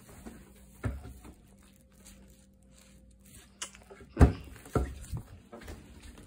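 Footsteps and scattered thumps on a hardwood floor, the loudest thump a little past four seconds in and another just after it.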